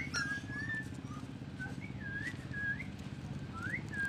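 Puppies whining: short, thin, high-pitched whimpers that rise and fall, repeated many times, over a steady low hum.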